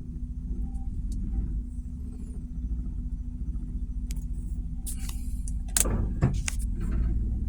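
1997 Mazda Miata NA's 1.8-litre four-cylinder idling with the AC off, its loudness pulsing unevenly: the rough idle the owner is showing. Several sharp clicks and rattles come in the last couple of seconds.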